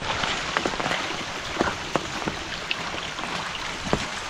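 Steady rain falling, with louder single drops striking close by about twice a second.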